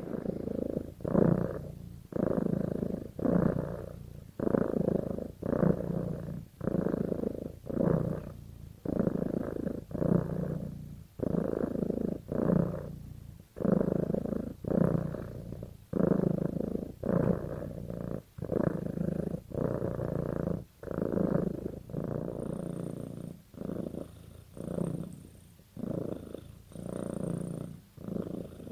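Domestic cat purring steadily while being stroked, the purr swelling and fading in a regular rhythm of one to two pulses a second.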